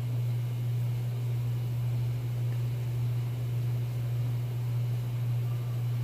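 A steady low hum with a faint even hiss, unchanging throughout.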